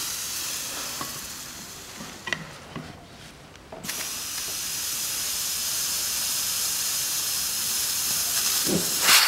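Compressed air hissing from a blow gun pressed into the fluid port of a Mitsubishi Colt front brake caliper to force the piston out; the piston is seized and does not move. One hiss that fades away until about three and a half seconds in, a short break, then a steadier hiss for about five seconds, ending with a louder burst near the end.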